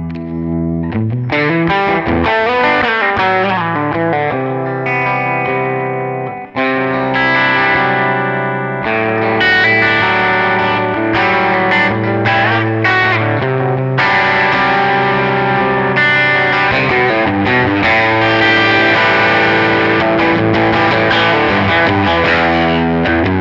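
Electric guitar, a PGM Van Zandt TLV-R1 Telecaster-style, played through a Line 6 POD XT modelling a '65 Marshall JTM-45 with chorus, analog delay and plate reverb. It plays distorted chords and lead lines continuously, with a brief break about six seconds in.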